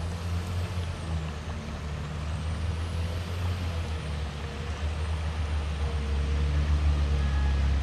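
Engine running steadily, a low even hum that grows slowly louder and cuts off suddenly at the end.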